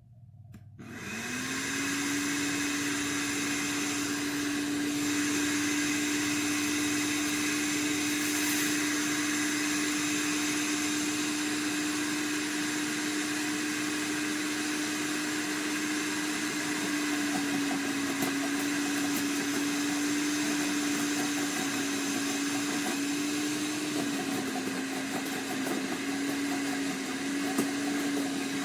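Sun Joe CJ603E 15-amp electric wood chipper/shredder switched on, its motor spinning up within about a second to a steady, loud whine. The pitch sags slightly twice, after about 17 and 24 seconds.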